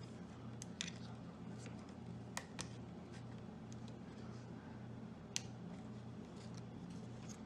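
Scattered small clicks and taps from laptop parts being handled during disassembly, over a low steady hum.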